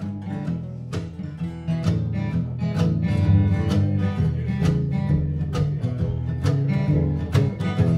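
Live bluegrass string band playing an instrumental opening: acoustic guitar and other plucked strings picking a quick rhythm under a bowed string line, with no singing.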